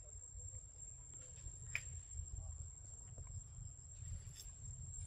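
Quiet forest ambience: a steady high-pitched insect drone over a low rumble, with a few small clicks, the sharpest a little under two seconds in.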